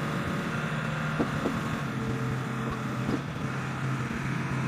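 Hydraulic car-crushing press running with a steady drone from its power unit during the final press, with a few faint metal squeaks as the car body is squeezed.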